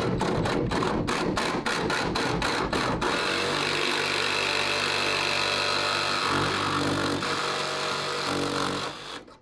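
Cordless jigsaw cutting the van's sheet-metal body at the window opening. It starts with a quick ticking, about six a second, and after about three seconds settles into a steady buzz that stops shortly before the end.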